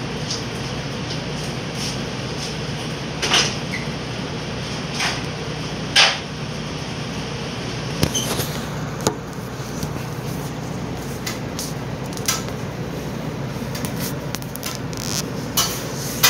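Steady hum of room machinery with scattered short knocks and clicks, a few of them louder, and a brief cluster a little past the middle.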